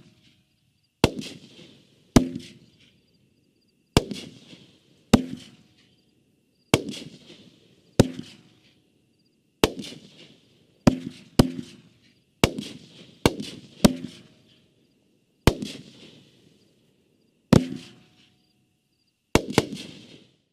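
A World Class Fireworks 'Sky Fall' consumer firework cake firing: some sixteen sharp bangs, one every second or so, each followed by a short crackling tail as the shells break.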